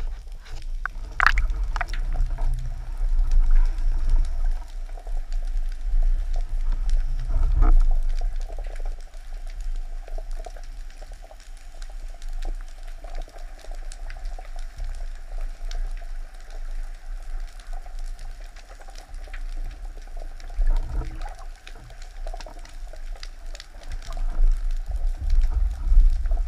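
Underwater sound through a camera mounted on a speargun: a steady low rumble of water moving around the housing, with scattered faint clicks and a couple of sharp knocks about a second in.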